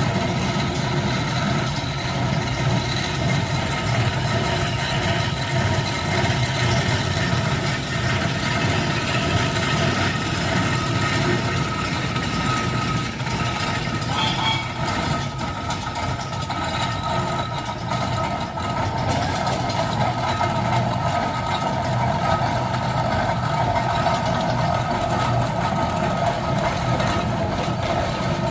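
Fowler steam ploughing engine travelling on the road, running steadily at an even level.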